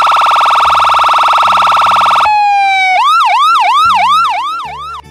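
Cartoon ambulance siren sound effect. It begins with a loud, fast-buzzing tone for about two and a half seconds, glides briefly downward, then switches to a quick rising-and-falling yelp about three times a second, which cuts off just before the end.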